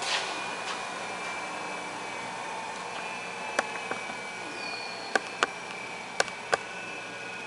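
Kent KGS-616S surface grinder running: a steady high whine over a hiss. A short falling whistle comes about two-thirds of the way in, and five sharp ticks fall in the second half.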